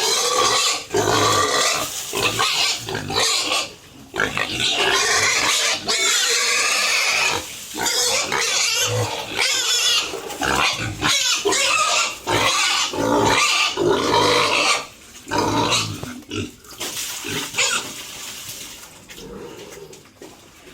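Several pigs grunting and squealing in loud, overlapping bursts, dying down over the last few seconds.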